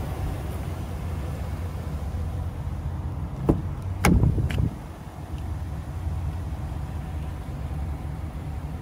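A pickup truck's door latch clicks about three and a half seconds in, then a louder clunk follows as the driver's door is pulled open, over a steady low rumble.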